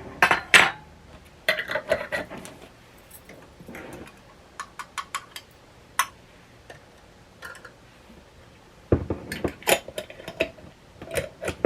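Metal utensils clinking and scraping against dishes while food is served, in short irregular clusters of clicks. The loudest clatter comes about half a second in and again about nine seconds in.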